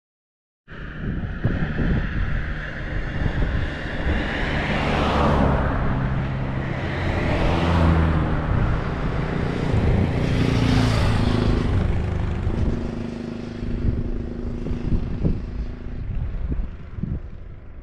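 Modern diesel farm tractors driving past one after another on a road, with engine drone and tyre noise rising and falling as each goes by.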